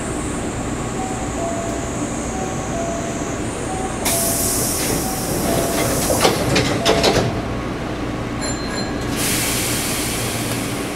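Hankyu Kobe Line electric train heard from inside the leading car: a steady low rumble, with a loud hiss of air and a few sharp clicks in the middle, then a short high beep.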